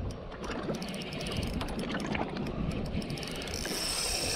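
Spinning reel clicking rapidly while a hooked northern pike is being fought on the line, with a steady hiss near the end.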